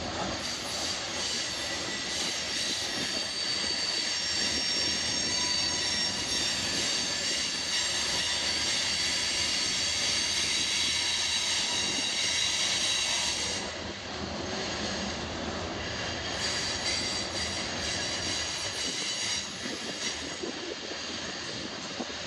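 Loaded covered hopper cars of a freight train rolling slowly past on a curve with a steady rumble and clatter. For the first half there is a high-pitched squeal of wheel flanges grinding on the curved rail, which cuts off about thirteen seconds in.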